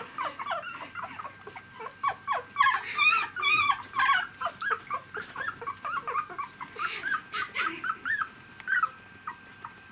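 Three-week-old poodle puppies whimpering and squeaking: many short calls that fall in pitch, several a second, with a louder wavering squeal about three seconds in. The calls thin out near the end.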